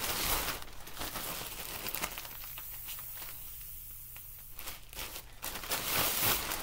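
Plastic mailing bags and packaging crinkling and rustling as they are handled, in bursts near the start and again near the end, quieter in between.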